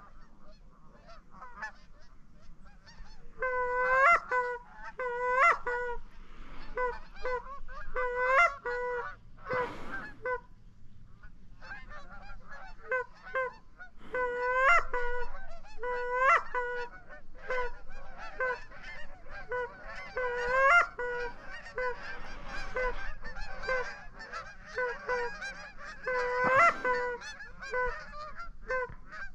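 Geese honking: many short, repeated honks, some loud and close, in runs several a second, with fainter honking in between.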